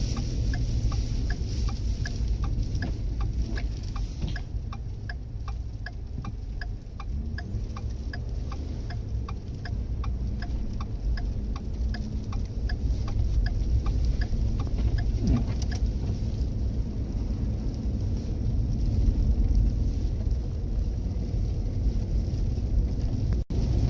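Truck driving on an ice-covered highway, heard from inside the cab: a steady low road and engine rumble. A quick, regular ticking, about two a second, runs over it and stops about two-thirds of the way through.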